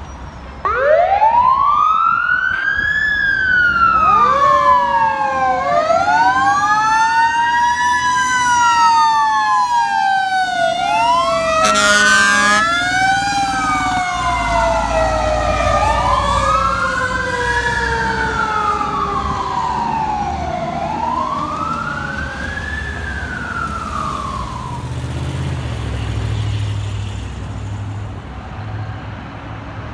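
Fire truck sirens: a siren wail rising and falling about every two and a half to three seconds, over a second siren tone sliding slowly down. A short air horn blast comes about twelve seconds in, and the sirens fade near the end over low rumble.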